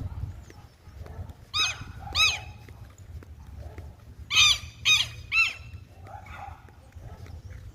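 Bird giving five short, harsh calls, each rising and falling in pitch: two close together, then a pause, then three more.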